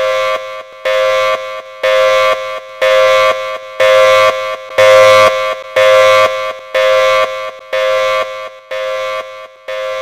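Federal Signal Thunderbolt outdoor warning siren sounding the pulse signal: a steady tone switched on and off about once a second. It grows louder toward the middle and fades again as the rotating horn sweeps past.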